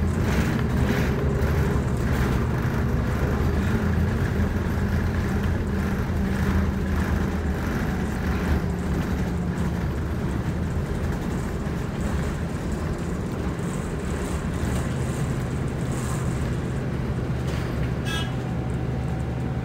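Interior sound of an Orion VII EPA10 city bus under way: the engine and drivetrain run steadily with road noise, the engine pitch changing about halfway through. A short high chirp sounds about two seconds before the end.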